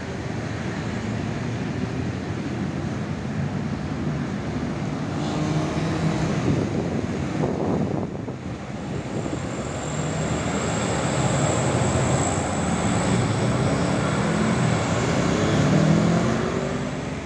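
Busy road traffic at a junction: a large diesel tour bus and motorcycles pass, their engine notes rising and falling over a steady traffic noise. A thin high whine sounds for several seconds in the middle.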